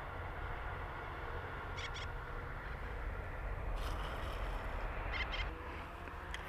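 Wind rumbling steadily on the microphone, with a few short, faint high chirps about two, four and five seconds in.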